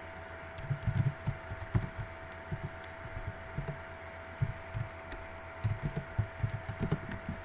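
Typing on a computer keyboard: irregular soft thuds and faint key clicks, over a steady electrical hum.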